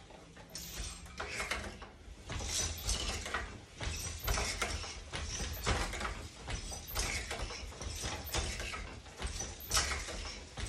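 Wooden floor loom being woven on: a run of wooden clacks and knocks, one or two a second, as the boat shuttle is thrown across the shed and the beater packs in the weft.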